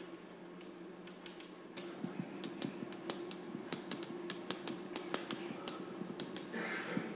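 Chalk tapping and clicking against a blackboard during writing: a quick, irregular run of sharp taps, several a second, over a steady low hum.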